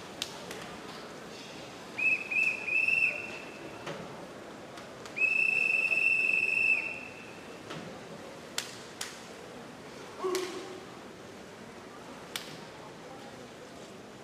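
Swimming referee's whistle: three short blasts, then one long steady blast of about a second and a half. This is the start sequence that calls swimmers to the blocks and then has them step up. A few sharp clicks and knocks sound from the pool hall.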